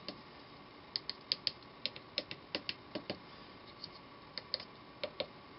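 Small tactile push-button switches on a circuit board clicking as they are pressed, about fifteen sharp clicks in quick, irregular runs.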